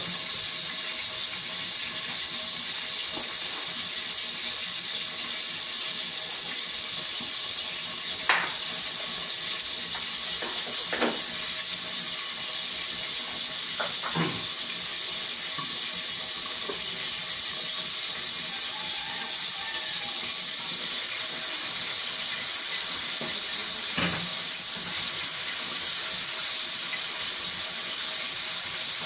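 Pan of pinakbet vegetables simmering under a glass lid on a gas burner: a steady watery hiss, with a few scattered clicks.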